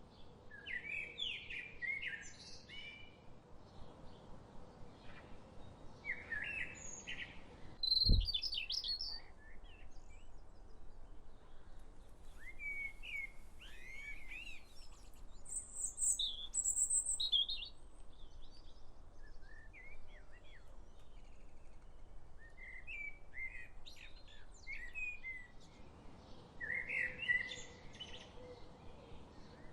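Several songbirds chirping and singing in short phrases, over a faint steady background hum. A brief low thump sounds about eight seconds in.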